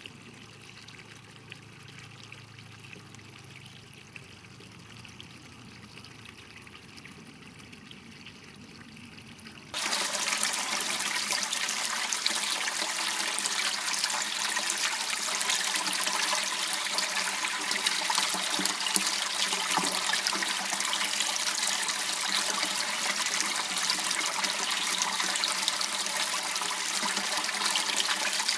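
Small irrigation channel water trickling and running. It is faint for about the first ten seconds, then abruptly much louder and steady.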